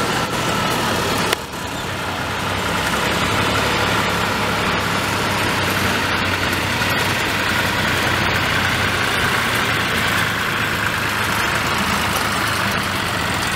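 Antique farm tractor engines running steadily as the tractors drive past, with a brief sudden drop in the sound about a second in.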